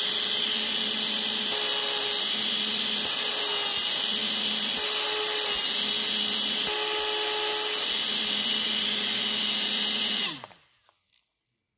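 Small electric motor spinning the fan of a 3D-printed model turbofan at speed: a steady high-pitched whine with a rush of air. It dies away quickly about ten seconds in, its pitch falling as it goes.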